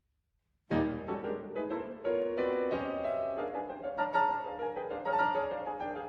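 Piano music that starts suddenly out of silence under a second in and carries on as a steady run of struck notes.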